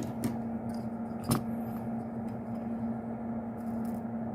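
Steady low electrical hum, with one sharp click about a second in and a few faint ticks of small objects being handled on the workbench.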